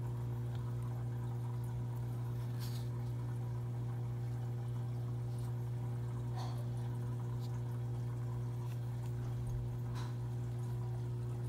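A steady low hum, with three faint light clicks spread through it as fingers turn a small die-cast metal model airliner.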